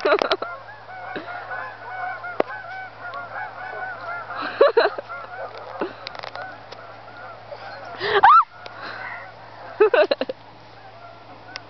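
A flock of geese honking, many short calls overlapping without a break, with louder honks close by about halfway through and again later on. A few short knocks are heard among the calls.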